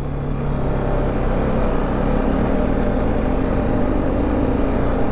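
TVS Apache RR310's single-cylinder engine running steadily while the bike is ridden over a rough gravel track, under a steady rushing noise.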